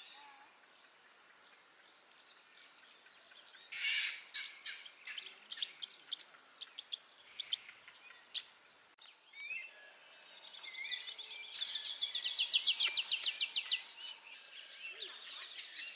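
Wild birds chirping and calling in short high notes, with a fast, even trill lasting over a second about three-quarters of the way through. A thin, steady high-pitched tone runs underneath.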